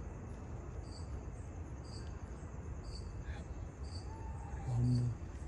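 Night insects chirping: a high chirp repeats about once a second over a steady, fainter high insect drone. A short low hum sounds near the end.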